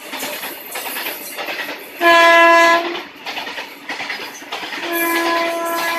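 Freight train of tank wagons rolling past, its wheels clattering over the rail joints. An electric locomotive horn gives a short, very loud blast about two seconds in and a longer blast that starts near the end.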